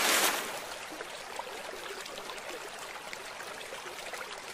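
The end of a big splash as a loaded toy dump truck crashes into river water, dying away in the first half-second. It is followed by steady, quieter sloshing and dripping of the disturbed water as the truck sinks.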